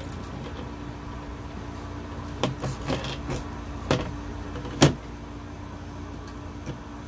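Handling sounds from threading twine through the top of a painted wooden sign: about half a dozen light clicks and taps, the loudest nearly five seconds in, over a steady low background hum.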